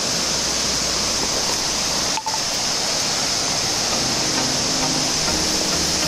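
Waterfall rushing: a loud, steady roar of falling water that dips for an instant about two seconds in.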